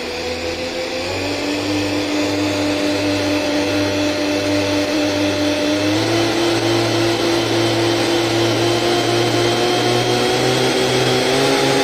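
Twin electric motors driving a homemade surfboard's jet drives, running with a steady whine. The pitch steps up about a second in and again about six seconds in, then creeps higher near the end, as the throttle is raised.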